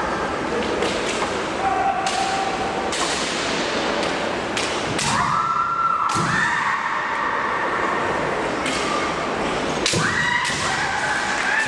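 Kendo bout: bamboo shinai clacking against each other and on armour, with foot stamps on a wooden hall floor and the fencers' long, high-pitched kiai shouts, about five to seven seconds in and again near the end.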